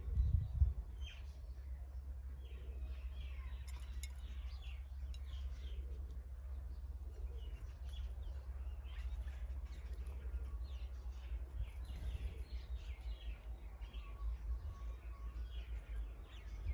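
Several small birds chirping, many short chirps overlapping, over a steady low rumble.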